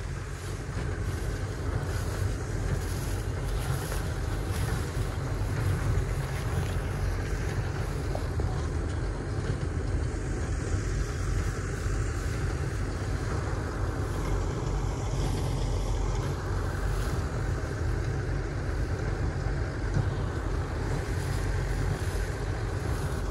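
A machine's motor running steadily with a deep rumble, growing louder over the first couple of seconds and then holding even.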